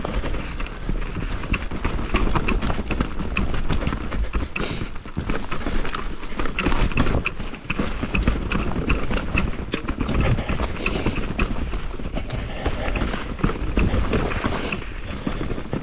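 Mountain bike riding fast down a rocky trail: tyres crunching and rattling over loose rock and dirt, with a close run of clicks and knocks from the bike over a steady low rumble.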